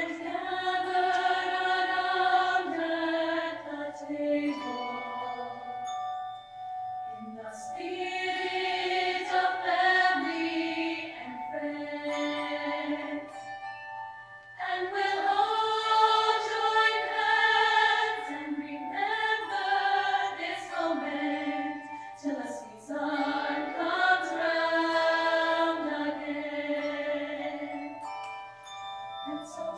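Choir singing a holiday song in sustained chords, phrase by phrase with brief breaks between phrases.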